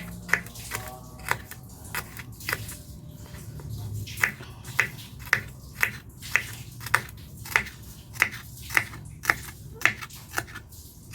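Kitchen knife slicing through vegetables and striking a cutting board in sharp, separate chops, irregular at first, then a steady rhythm of about two a second.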